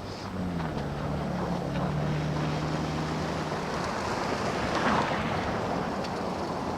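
Blizzard wind blowing over the microphone, with a passing vehicle's low engine hum that drops a little in pitch and fades about four seconds in.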